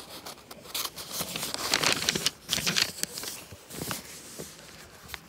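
A paperback book's page being turned, a run of crinkly paper rustles that are loudest about two seconds in, then a few softer ones.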